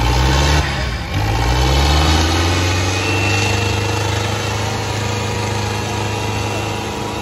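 Tractor diesel engine revving up, easing off briefly about a second in, then revving up again and holding at high revs.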